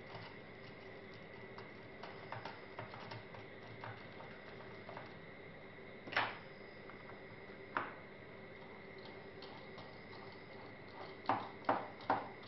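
Scattered light ticks and taps, with a few sharper clicks, of small tools and laptop parts being handled during disassembly. The sharper clicks come one about halfway through, one shortly after, and three in quick succession near the end, over a faint steady tone.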